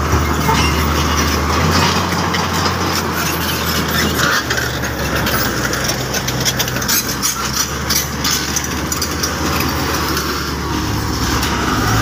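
Heavy diesel earthmoving machines running: a Komatsu D85EX crawler bulldozer working rock and earth with a wheel loader's engine close by. A steady low engine drone shifts about four seconds in, with scattered clanks and knocks throughout.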